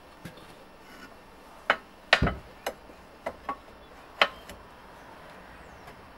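Lucas Swinglift mini crane's boom being lifted from horizontal: a run of sharp metal knocks and clunks, the loudest a heavy double clunk about two seconds in, dying out after about four seconds.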